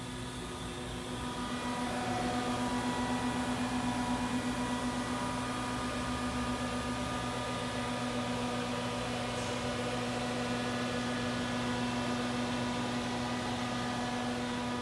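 Haas VF-2SS vertical machining center running, a steady machine hum with a whine on top. It builds up over the first two seconds and then holds steady.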